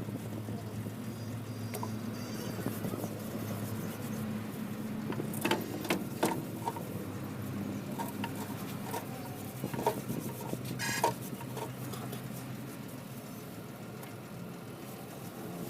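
A steady mechanical hum with a handful of sharp knocks and clicks around the middle.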